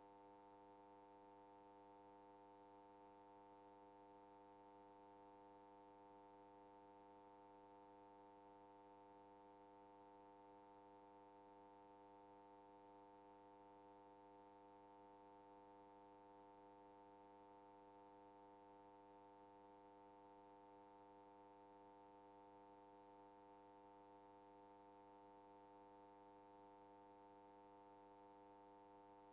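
Near silence, with a faint steady hum of several low tones that does not change.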